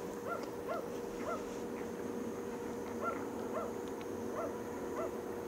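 A dog barking, about eight short barks in two loose runs with a pause between them, over a steady low hum.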